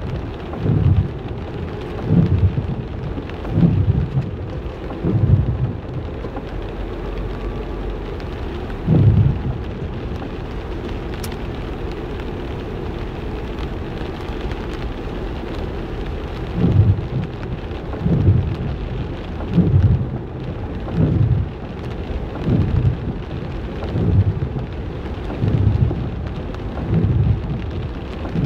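Steady rain, with short low rumbling thumps that recur about every second and a half and stand out above it. The thumps stop for several seconds in the middle of the stretch, then return.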